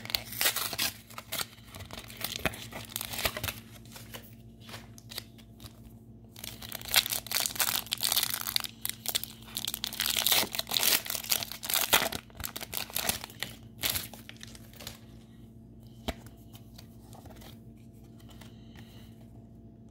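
Foil wrapper of a Pokémon trading-card booster pack being torn open and crinkled by hand. The crackling is loudest in the middle and dies down to quieter handling about two-thirds through.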